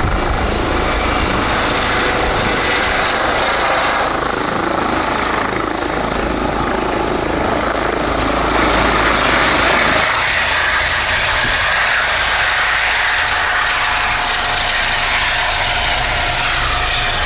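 Eurocopter EC135 twin-turbine helicopter in flight, a steady rotor and turbine noise. About ten seconds in the low rumble drops away and a higher whine takes over.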